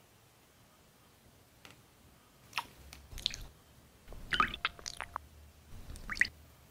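A few short, wet squelching and squishing sounds from a slippery, jelly-like object being handled, starting about two and a half seconds in, with a cluster near the middle.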